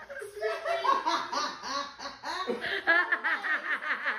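Hearty human laughter, breaking into a rapid string of "ha-ha-ha" bursts about three seconds in.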